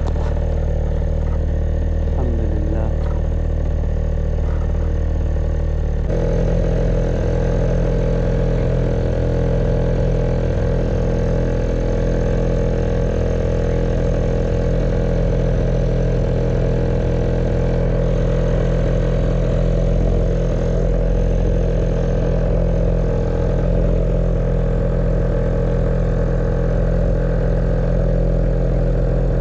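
Small fishing boat's motor running steadily while trolling. Its engine note shifts abruptly about six seconds in and then holds steady.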